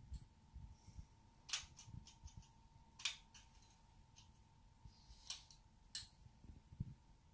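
A smartphone being tapped and handled: a dozen or so sharp, irregular clicks, some in quick pairs, over a faint steady high-pitched tone, with a few soft low thumps near the end.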